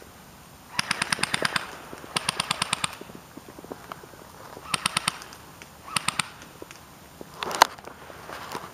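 Airsoft rifles firing on full auto: four bursts of rapid clacking shots, the first two about a second long and the later ones shorter. One louder sharp sound comes near the end.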